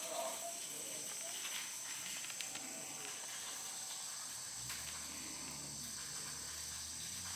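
Steady high-pitched insect drone, with a low hum coming in about four and a half seconds in.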